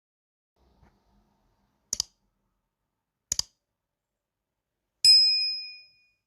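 Two quick double clicks, then a single bright ding that rings and fades over about a second.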